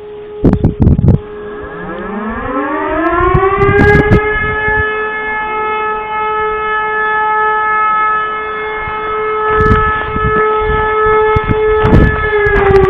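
E57 motor siren winding up from a low growl to a steady howl over about three seconds, holding its tone, then starting to wind down near the end, while another E57 already holds its tone in the distance. A few loud low thumps break in, the loudest about half a second in.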